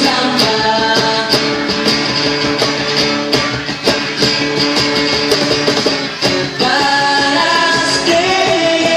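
A live acoustic band playing a pop song: male voices singing over strummed acoustic guitar and a second guitar, with steady cajon hits keeping the beat.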